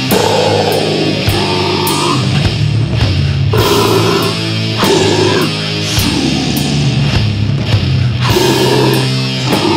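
Death metal recording: heavily distorted electric guitars and a drum kit playing loud and dense.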